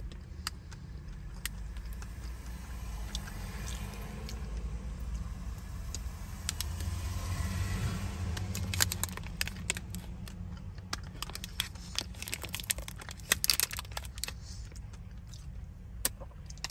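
Chewing and the crinkling of a foil-lined snack-bar wrapper: irregular sharp crackles, thickest in the middle of the stretch. Under them is a steady low hum of the car interior.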